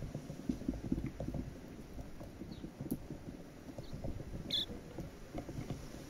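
Silvereyes pecking at a seed cake on a wooden feeder ledge: a rapid, irregular patter of small taps and crunches. A few brief high chirps come through, the clearest about four and a half seconds in.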